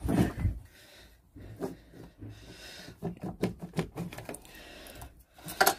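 Cylinder barrel of a Rotax 122 two-stroke engine being worked loose and pulled off its studs: irregular metal clunks, clicks and scrapes, with a heavier knock just after the start and another near the end.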